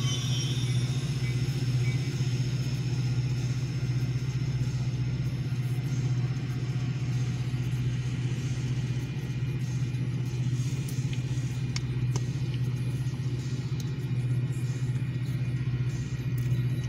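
Metra commuter train's bilevel passenger cars rolling past, a steady low rumble with a continuous hum underneath.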